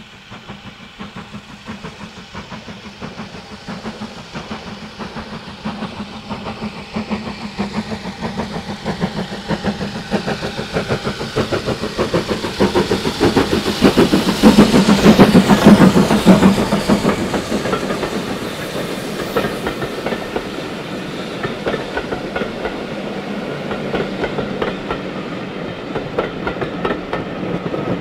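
BR Standard Class 4 2-6-4 tank locomotive working under steam, approaching and passing. Its exhaust beats grow louder and peak as the engine goes by about halfway through, followed by the steadier rattle of its coaches rolling past.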